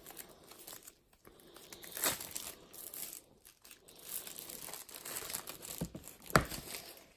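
Packaging around a boxed card deck being crinkled and torn in irregular rustling bursts, with a sharp knock a little after six seconds in.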